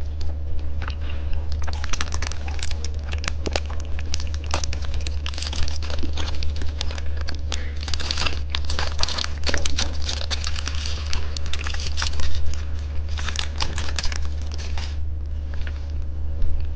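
Plastic candy wrapper crinkling and tearing as it is handled and opened, with dense irregular crackles, busiest in the second half, over a steady low hum.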